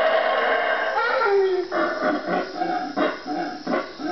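Howler monkeys roaring: a long sustained roar for about the first second, a falling note, then a run of short pulsing grunts a few times a second. Super freaky sounding.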